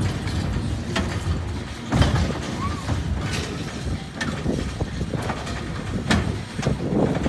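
Small family roller coaster train rolling along its steel track, a steady low rumble with sharp clacks about once a second.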